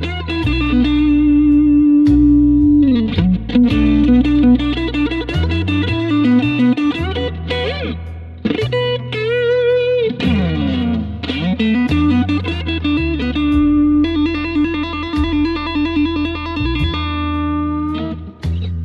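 Fender Stratocaster played through a BOSS GT-100 on its COMBO amp sound, taking a blues lead with string bends and vibrato over a bass line that moves in steps.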